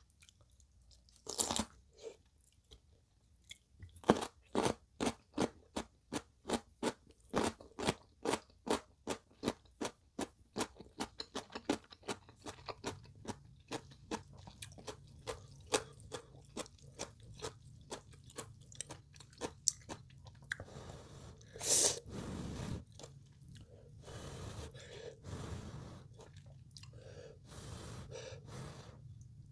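Close-up crunching of chonggak (ponytail radish) kimchi being chewed, a steady run of crisp bites about two a second that gives way to softer chewing, with one louder, longer sound about two-thirds of the way through.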